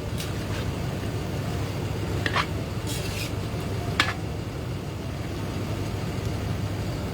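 Steady low mechanical hum, like an engine running at idle, with two sharp clicks and a brief high hiss about three seconds in.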